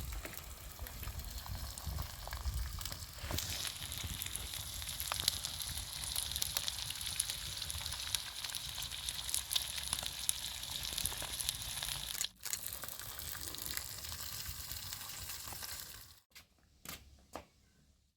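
Food frying in a pan over a campfire: a steady sizzle with small crackles. It drops out briefly about twelve seconds in and stops a few seconds before the end, leaving only a few faint clicks.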